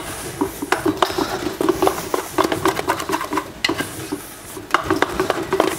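Wooden spoon stirring thick choux paste (panade) in a large stainless steel stockpot, knocking and scraping against the pot in irregular strokes a few times a second, as the paste is dried out on the stove.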